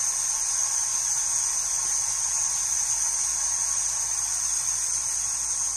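Irrigation booster pump's electric motor running: a steady high-pitched whine over a faint low hum.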